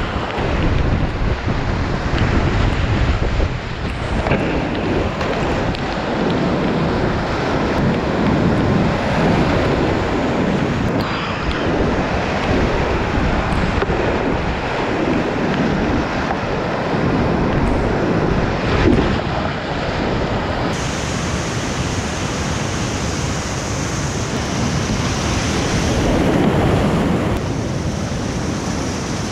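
Loud, steady rush of whitewater rapids heard from a kayak in the middle of them, surging a little as the boat moves through the waves.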